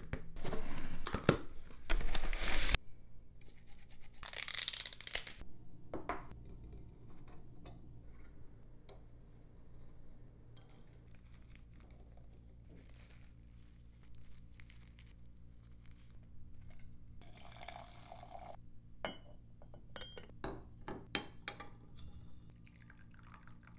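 Cardboard packaging torn and paper crinkling as a box is opened, loudest in the first few seconds, then quieter handling of a tea tin and paper tea filter, and a few light clinks of a china cup and saucer near the end.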